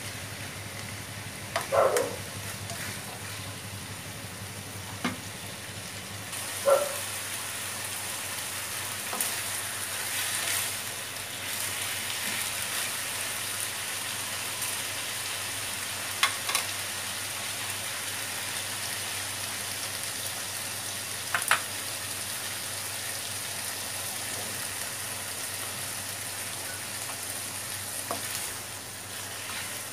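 Pork pieces sizzling as they fry in a non-stick wok, stirred with a spatula. A few sharp knocks of the spatula against the pan stand out over the steady sizzle.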